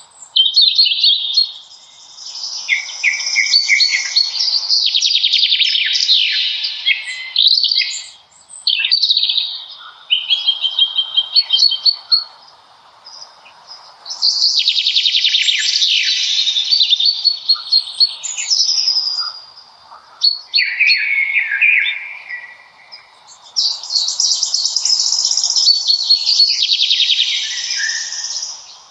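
Songbirds singing in a forest: long, rapid, trilling song phrases, each a few seconds long, following one another with short pauses, over a faint steady background hiss.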